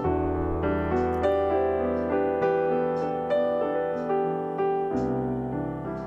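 Background piano music: a steady run of soft piano notes over held low bass notes.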